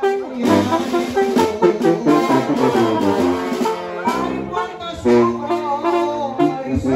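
Sinaloan banda brass band playing live: trombones and other brass carry the tune over a steady beat of drum hits.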